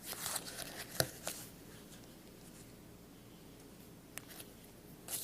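Hands handling an aluminium tactical pen and a marker: soft rustling with a sharp click about a second in, then a few faint ticks near the end.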